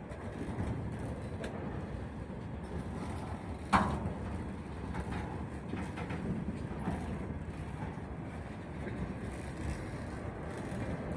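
Freight wagons, open gondolas and container flatcars, rolling past while the train picks up speed: a steady rumble of steel wheels on the rails. One sharp clank about four seconds in, with a few fainter knocks after it.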